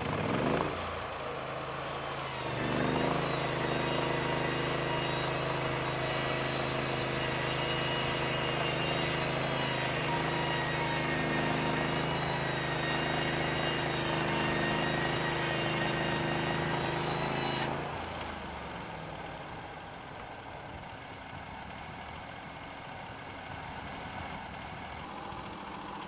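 Portable bandsaw mill's 23 HP Briggs & Stratton engine throttling up a few seconds in and running steadily under load while the blade cuts through a log. It drops back to idle about two-thirds of the way through, as the operator control is released.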